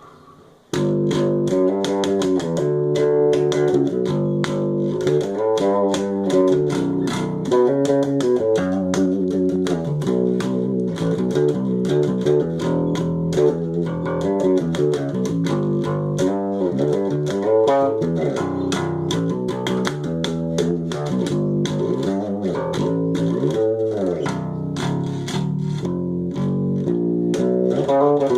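Electric bass guitar playing a gospel-song groove, a steady run of plucked notes and double-stops that starts about a second in.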